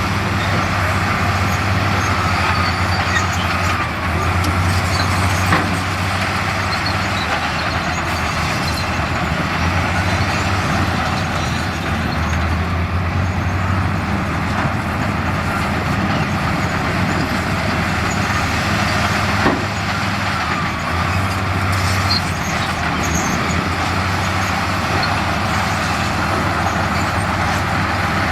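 Heavy diesel engines of earthmoving machinery running steadily under load, with a low hum throughout. Two sharp knocks stand out, one about five seconds in and one near twenty seconds.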